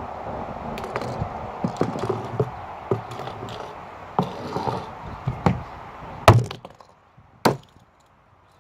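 Hammer blows striking a fidget cube: a string of irregular sharp knocks, the loudest about six seconds in and one more about a second later.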